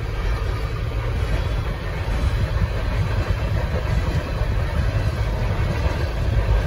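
Empty coal hopper cars of a freight train rolling through a grade crossing: a steady low rumble of wheels on the rails.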